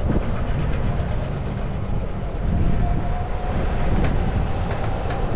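Golf cart driving along: a steady low rumble from its tyres and running gear, with wind on the microphone and a few light rattles. A faint steady whine comes in about two and a half seconds in.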